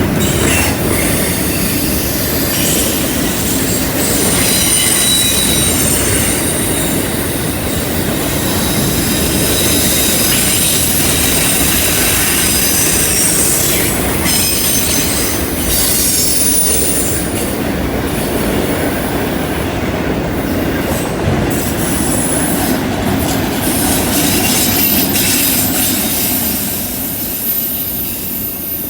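Freight cars of a CN intermodal train rolling past on a curve, steel wheels squealing against the rail in thin high tones over a steady rumble of wheels and cars. The sound starts to fade near the end.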